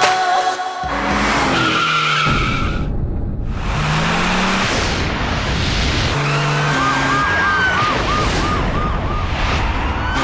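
Vehicle noise, like a car chase sound effect, with a siren that warbles rapidly a few times a second for a couple of seconds past the middle.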